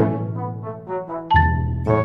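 Background music: a run of short notes, then one note held for about half a second near the end.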